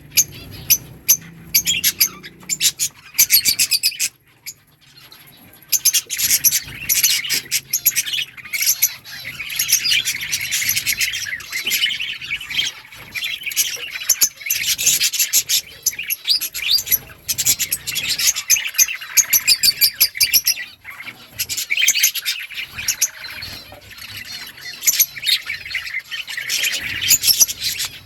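A flock of budgerigars chattering, many quick high chirps overlapping, with a short lull about four seconds in.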